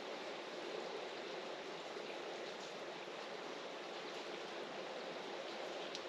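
Steady rain falling, an even hiss of water with no change in level.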